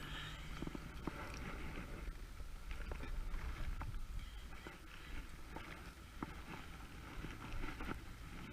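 Wind buffeting the microphone as a low rumble, with scattered light clicks and taps.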